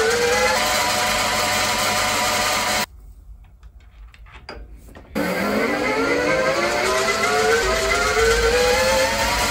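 Milling machine motor running while a small drill bit in its drill chuck drills a hole in a steel valve chest block, with a slowly rising whine. It stops about three seconds in, leaving a few faint clicks as the part is moved by hand to the next hole, then runs again with the same rising whine from about five seconds in.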